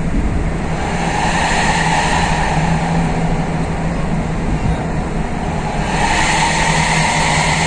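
Suzuki APV van with an aftermarket racing exhaust running, a steady low drone under a rushing noise that swells about a second in and again near the end.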